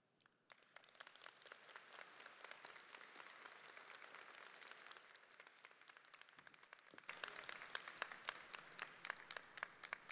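Audience applauding, faint, starting about half a second in and swelling around seven seconds before tailing off near the end.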